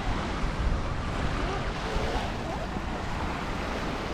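Surf washing onto a sandy beach, with wind rumbling on the microphone.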